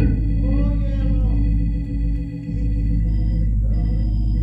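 Organ playing long held chords that change slowly.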